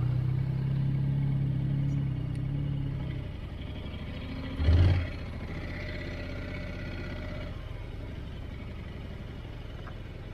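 Motorcycle engine ticking over at low revs with a steady hum. The hum is louder for the first three seconds, there is a brief loud burst about halfway through, and then a quieter steady run at low speed.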